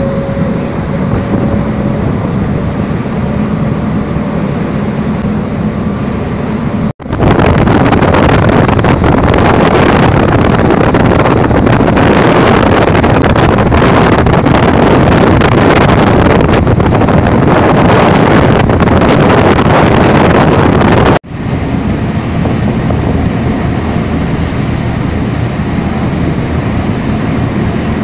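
A motorboat under way, its engine running beneath heavy wind noise on the microphone and rushing water. The sound breaks off sharply twice, and the middle stretch is much louder.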